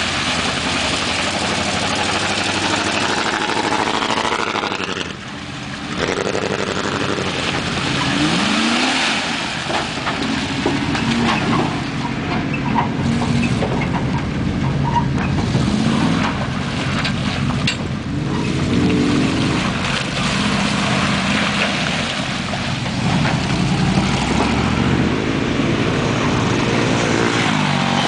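Dodge Power Wagon pickup trucks' engines revving repeatedly, the pitch rising and falling, as the trucks churn through deep mud and water, with a constant rush of splashing and wheel noise underneath.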